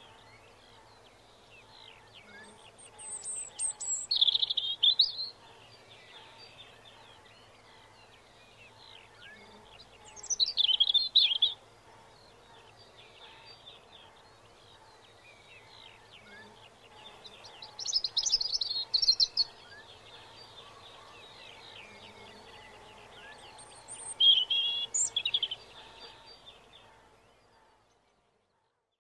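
Birdsong: four loud, high-pitched song phrases about seven seconds apart over a steady background of many faint chirps from other birds, fading out near the end.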